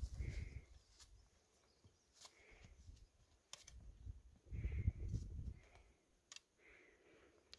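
Footsteps and trekking-pole tips clicking on a rocky mountain trail, a sharp tap every second or so, with low rumbles on the microphone near the start and around the middle.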